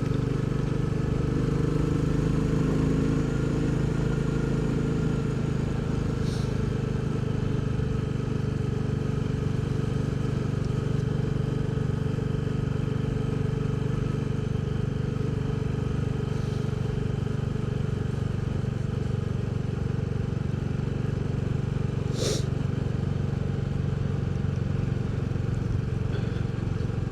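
Royal Enfield Bullet 350's single-cylinder four-stroke engine running steadily while the motorcycle cruises along, its pitch holding nearly constant.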